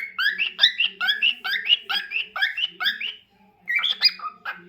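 Lutino cockatiel chirping in a fast run of short rising notes, about four a second, breaking off about three seconds in, then a few more calls near the end.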